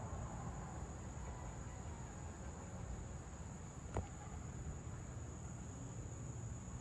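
Insects trilling steadily on one high note over a low rumble, with a single sharp click about four seconds in.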